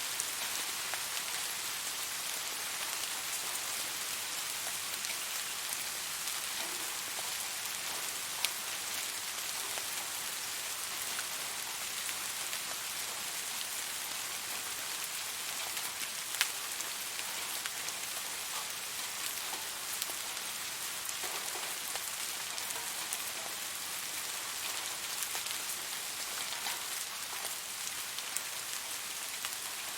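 Steady rain falling, a dense even hiss of drops with a few louder individual drops ticking, once about eight seconds in and again about sixteen seconds in.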